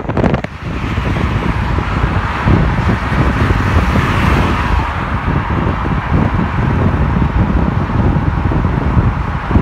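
Car driving in traffic: steady tyre and engine rumble with road hiss that swells briefly about four seconds in.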